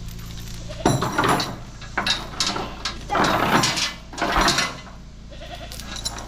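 Goats bleating, four loud calls in quick succession.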